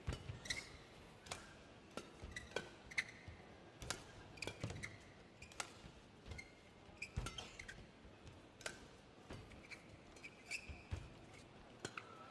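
Badminton rally: sharp racket strikes on the shuttlecock roughly once a second, with short squeaks of players' shoes on the court mat in between.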